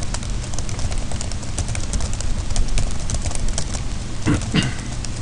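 Computer keyboard being typed on: a quick, irregular run of key clicks as keys are pressed to test that they all work, over a steady low hum.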